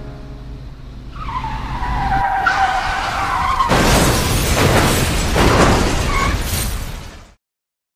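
Car skid and crash: tyres squeal for about two and a half seconds, then a loud crash of many impacts follows for about three seconds and cuts off suddenly.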